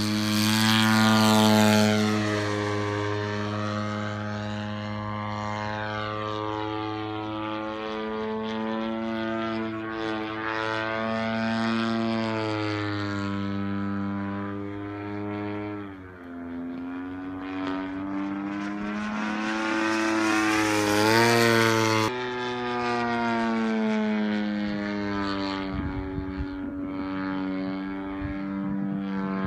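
DLE 120 twin-cylinder two-stroke gas engine driving the propeller of a large radio-controlled Yak 55M aerobatic plane in flight. The engine drone rises and falls in pitch several times as the plane is throttled and manoeuvres, loudest near the start and again about three-quarters through.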